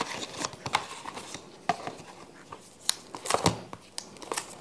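Rustling, crinkling and light clicks of a smartphone box's contents being handled: paper booklets and a clear plastic phone case taken out and moved about.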